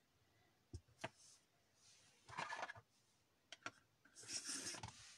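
Faint handling of paper-craft tools on a desk: a few light clicks and two short rubbing scrapes, the louder one about four and a half seconds in.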